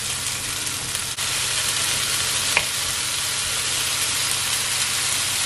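Mushrooms and chopped vegetables sizzling steadily in hot oil in a non-stick frying pan on medium-high heat, stirred with a wooden spatula. One sharp tap comes about halfway through.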